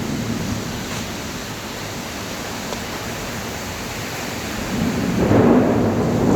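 Heavy rain falling with a steady hiss, and a low rumble of thunder swelling up near the end.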